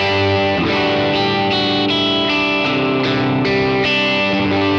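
Electric guitar strumming a run of chords, about two attacks a second, each ringing into the next. It is played through a Kemper Profiler on a '65 Deluxe Reverb profile with an AC30 Top Boost tone stack applied.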